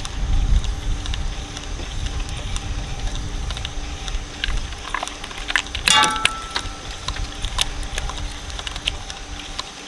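Shredder running steadily with a low hum, with scattered crackling and snapping as material breaks up between its cutters. A single sharper ringing crack comes about six seconds in.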